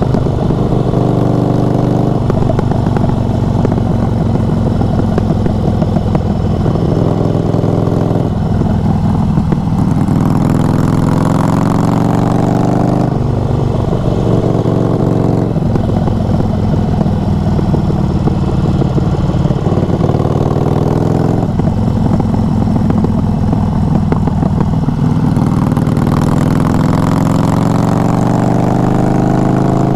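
Harley-Davidson Evolution V-twin motorcycle engine running under way, loud throughout. It pulls up through the revs with a rising pitch three times, dropping back sharply between pulls as it shifts gear.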